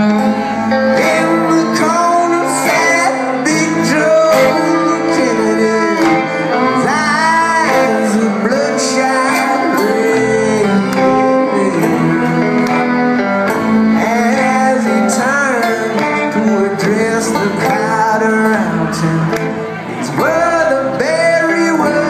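Live acoustic string band (banjo, acoustic guitar, fiddle and upright bass) playing a song with sung vocals.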